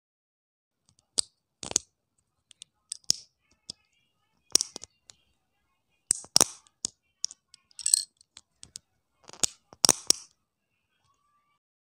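Small plastic Lego pieces clicking and snapping as they are handled and pressed together, including a tyre being worked onto a plastic wheel rim: an irregular string of sharp, separate clicks with short gaps between them.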